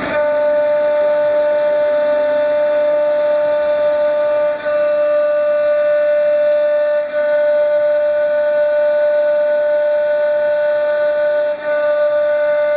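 CNC spindle motor driven by a frequency inverter, running at constant speed with a steady high-pitched whine. The whine briefly dips three times.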